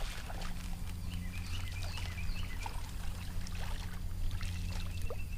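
Wind buffeting the microphone: a steady low rumble, with faint short high chirps repeating in the background.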